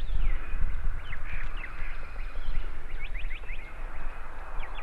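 Woodland songbirds chirping, with many short quick calls throughout, over a steady low rumble.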